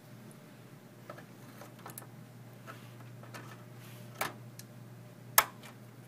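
Motherboard DIMM slot latches clicking as DDR3 memory sticks are pressed into their slots: a few light clicks, then one sharp, much louder click about five seconds in. The click is the sign that the module is seated and locked in place. A faint steady low hum runs underneath.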